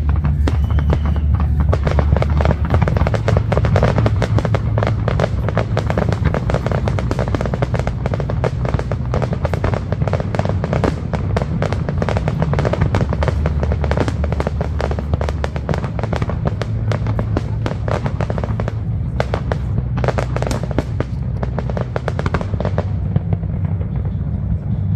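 Aerial fireworks display: shells bursting and crackling in a dense, rapid stream of pops, with music playing underneath. The crackle thins out near the end.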